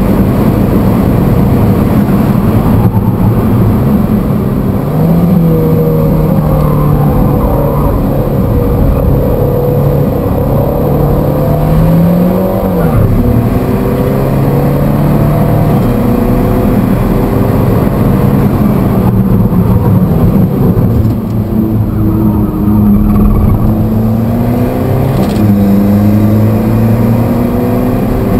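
Alfa Romeo 4C's turbocharged 1750 cc direct-injection four-cylinder engine being driven hard on track. Its pitch climbs under acceleration and drops sharply at several gear changes.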